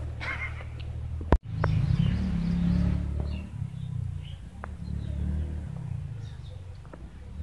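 Outdoor garden ambience: a steady low rumble with faint bird chirps here and there, and one sharp click about a second and a half in.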